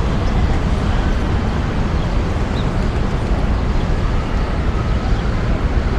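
Steady city traffic rumble from the surrounding streets: a continuous low hum of cars and trucks with no single vehicle standing out.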